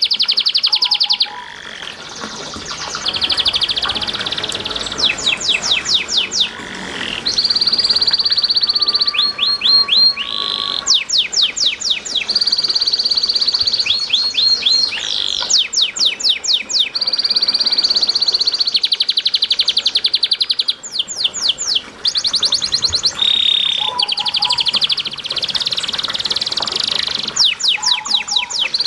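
Domestic canary singing a long, high-pitched song of rapid rolling trills and fast repeated sweeping notes, broken by brief pauses, over faint trickling water.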